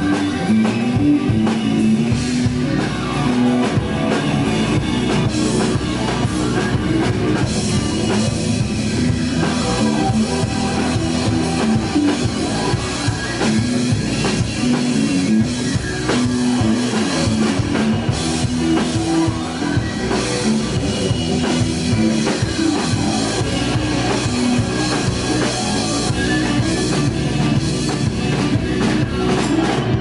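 Live rock band playing steadily: electric guitars over a full drum kit, heard from the audience in a small club.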